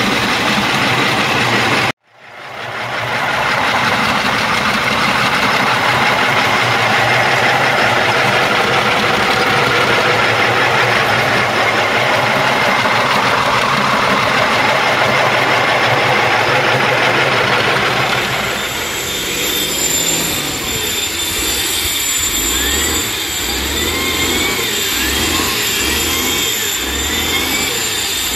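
A multi-head rotary stone-surfacing machine grinding across the wet top face of a granite kerb, giving a dense, steady grinding noise. It cuts out briefly about two seconds in and then comes back. From about two-thirds of the way through, a handheld angle grinder on granite takes over: a higher whine whose pitch dips and recovers about once a second as the disc bites into the stone.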